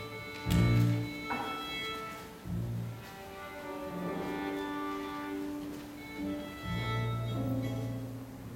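Solo violin playing a slow melody of long held notes over keyboard accompaniment with low bass notes.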